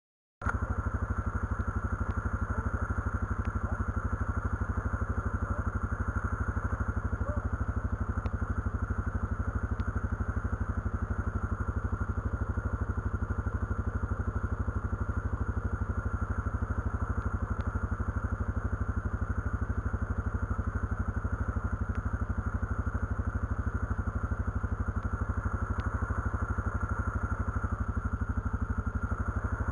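Quad engine running at a steady speed with no revving, starting abruptly about half a second in.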